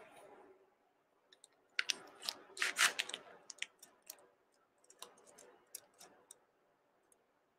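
Faint crinkling and clicking of a wrapped package of dry linguine being handled. The crinkling is busiest about two to three seconds in, followed by a few scattered small clicks.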